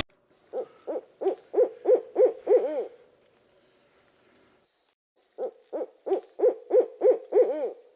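An owl hooting: two runs of about eight short, low hoots, each run ending in hoots that rise and fall in pitch, with a faint steady high-pitched tone behind.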